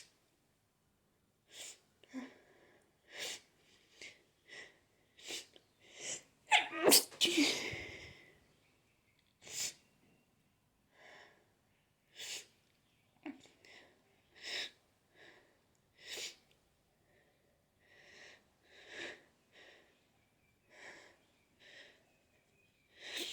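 A person in an allergy sneezing fit: a string of about twenty short, sharp sneezes every second or so, with one loud, longer sneeze about seven seconds in.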